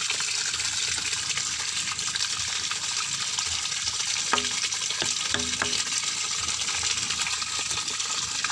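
Pumped water gushing steadily into a tarpaulin-lined pond, a constant hissing rush, with a few light knocks about halfway through as the plastic drain pipe is plugged.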